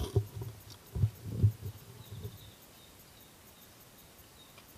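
A few dull low thumps in the first two seconds or so, then a faint, even outdoor background with a thin high tone.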